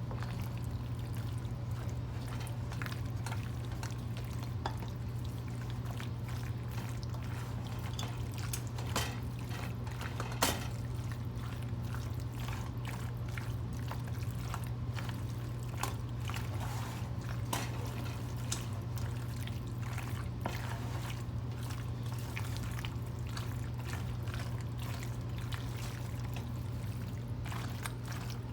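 Penne pasta, chicken and Alfredo sauce being stirred together: wet, saucy mixing with scattered small clicks and scrapes of the utensil against the dish, a couple of them sharper, about nine and ten seconds in. A steady low hum runs underneath.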